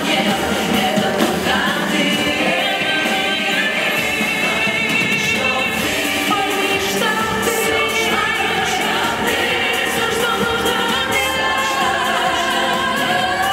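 A female vocal group singing a pop song live, several voices together over a band with drums.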